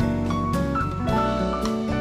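Background music: light jazzy instrumental with melodic notes over a steady beat.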